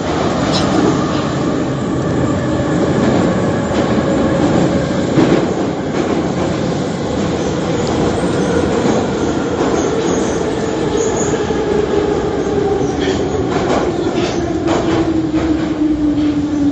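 Metro train running, a loud steady rumble with a whine that falls slowly in pitch through the second half as the train slows. A few sharp clicks of the wheels come near the end.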